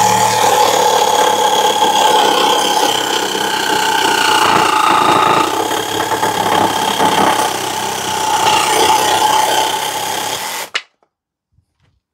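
Parkside PSSSA 20 Li B2 cordless 2-in-1 jigsaw and sabre saw running, a steady motor whine with the chatter of the reciprocating blade. It cuts off abruptly about eleven seconds in.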